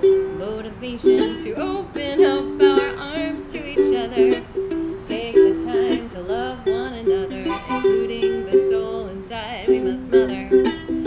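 Ukulele playing a strummed instrumental passage of a song, with chords struck again and again in a steady rhythm.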